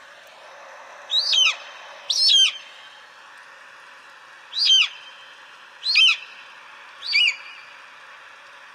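Eagle calling: five short, high-pitched calls, each sliding down in pitch, at uneven intervals over a steady background hiss.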